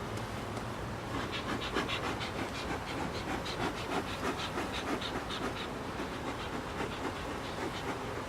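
Honeybees buzzing around an opened hive, with a quick run of short pulses over the top for a few seconds in the middle.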